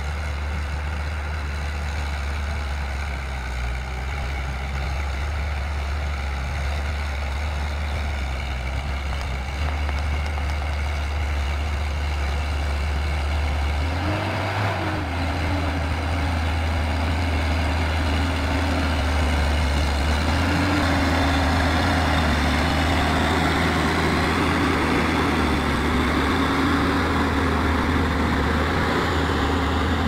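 Diesel engine of a tracked forestry forwarder running under heavy load as it crawls through deep mud. About halfway through, the engine note rises briefly and it then runs louder and harder.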